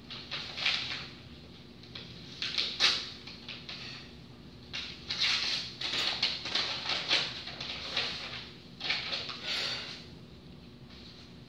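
Sheets of paper rustling and being shuffled in several short bursts, a pause of a second or two between them.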